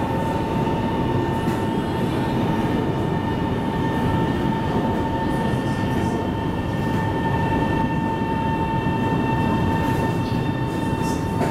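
Metro train, a first-batch Type B car, heard from inside while running and drawing into a station: a steady rumble of wheels and running gear with a constant high whine over it.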